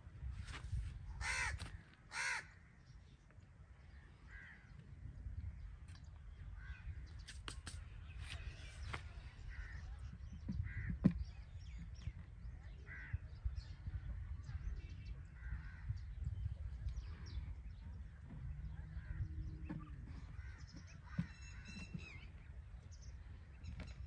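Birds calling: two loud calls about one and a half and two seconds in, then scattered fainter calls, over a steady low rumble.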